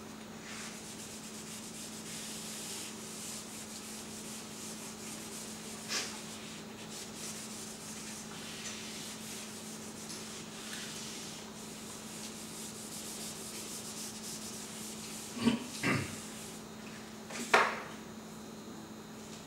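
Felt whiteboard eraser rubbing back and forth across a whiteboard, wiping off marker writing, as a steady scratchy hiss; a few knocks follow near the end.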